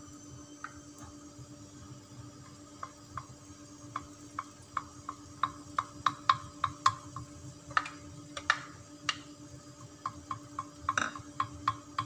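Beaten egg cooking in a hot oiled non-stick frying pan while a wooden spatula spreads it: scattered light pops and clicks, a few a second, over a steady low hum.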